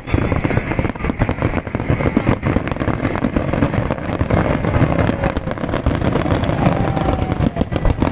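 Large aerial fireworks display: many shells bursting in quick succession, a dense, continuous run of bangs and crackles.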